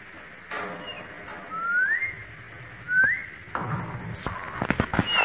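Caged parakeets calling: two clean rising whistle calls about a second apart, then a quick run of sharp clicks and taps near the end.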